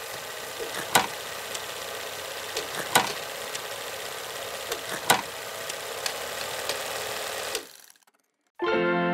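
Film projector running, a steady mechanical clatter with louder clicks about every two seconds, stopping suddenly near the end. Music starts after a moment of silence.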